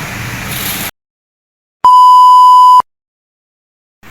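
A loud electronic beep: one steady high tone lasting about a second, set between stretches of dead digital silence. A steady outdoor noise haze cuts off abruptly just under a second in, before the beep.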